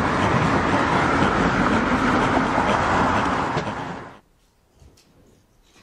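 Steady road and vehicle noise from recorded footage played over lecture-hall speakers, cutting off abruptly about four seconds in. After it, faint room tone with a few soft clicks.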